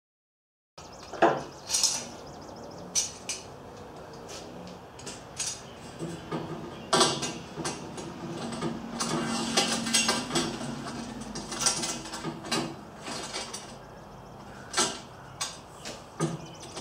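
Metal antenna parts and hand tools clinking and knocking as they are handled on a workbench: a string of irregular sharp clinks, starting about a second in.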